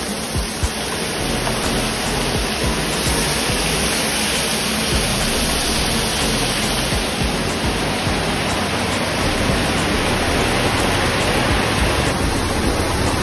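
A steady, even hiss of fish pieces frying in oil in a wok, mixed with heavy rain; near the end, rain pouring off a roof edge.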